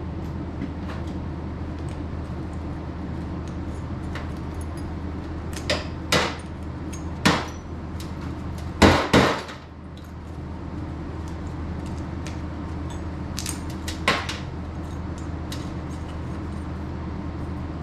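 Scattered metallic clanks and knocks, about half a dozen, from scrap pressure-relief-valve parts (brass, copper, steel) being handled. The loudest are two close together about nine seconds in, over a steady low machine hum.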